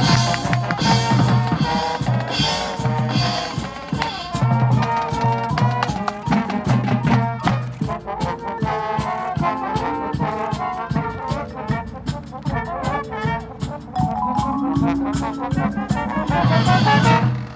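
Marching band playing live, brass section over drumline percussion. Accented brass chords pulse at the start, drums keep striking throughout, and a held chord swells and then cuts off sharply at the very end.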